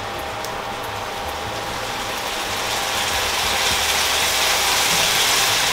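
Rice sizzling in a frying pan on an induction hob, a steady hiss with fine crackle that grows a little louder after the halfway point.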